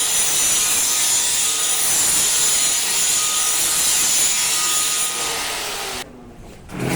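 Grinding machine running steadily on steel with a high rasping hiss. It cuts off suddenly about six seconds in, and a short thump follows near the end.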